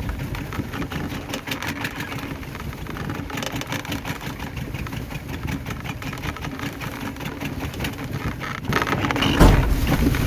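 An engine running steadily with a fast even pulse, most likely the fishing boat's motor. Near the end a loud rushing gust of noise swells over it.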